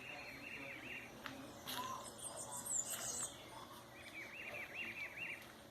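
Birds singing: a quick run of about seven repeated notes at the start and again about four seconds in, with higher thin calls in between.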